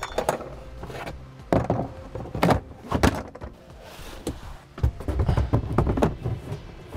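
Spare tire and hard plastic cargo floor panels being set back into a Chevrolet HHR's rear cargo well: a series of separate thunks and knocks, then a burst of clattering about five to six seconds in.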